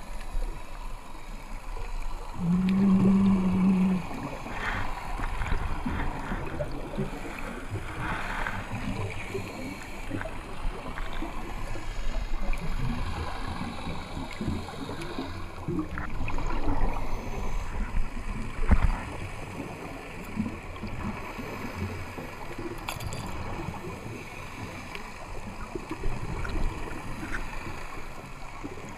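Underwater ambience heard through a camera's dive housing: a constant low rumble of water with irregular gurgling bursts of scuba exhaust bubbles. A short steady low hum comes about three seconds in, and a single sharp knock about two-thirds of the way through.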